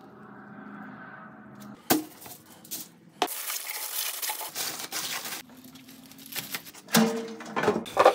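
Aluminium foil crinkling loudly for about two seconds as a rack of ribs is wrapped in it. Near the end a knife saws through the smoked ribs on a plastic cutting board in short scraping strokes.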